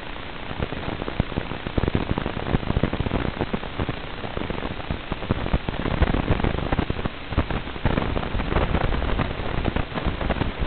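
Hiss and irregular crackling static on an analog FPV video link's audio channel, popping more often as the radio signal breaks up.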